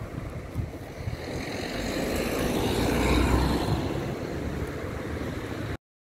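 Outdoor street traffic noise: a passing vehicle's rumble swells to a peak about halfway through and eases off, then the sound cuts off suddenly near the end.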